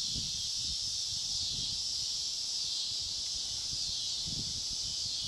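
A steady, high-pitched chorus of insects, with faint low rustling and handling noise underneath.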